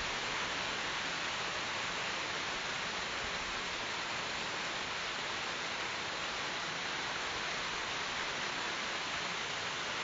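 Rain falling on tree leaves: a steady, even hiss.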